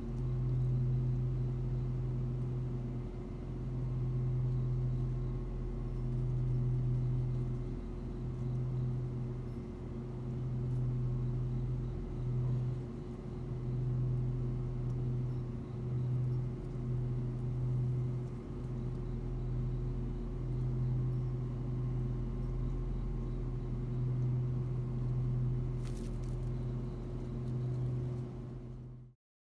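Street cat purring close to the microphone: a steady low rumble that pauses briefly every one to three seconds with its breaths, then cuts off suddenly near the end.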